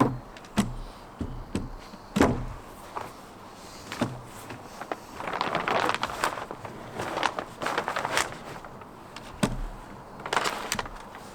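Irregular knocks and bumps of timber ceiling panels being handled and fitted, with scraping and rustling stretches about five seconds in and again near the end.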